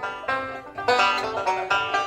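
Background music: fast plucked banjo in a bluegrass style, quick picked notes several times a second.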